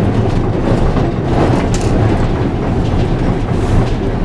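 Historic series 2800 tram running along street track, heard from inside its driver's cab: a steady low rumble of motors and wheels on the rails, with a few faint clicks.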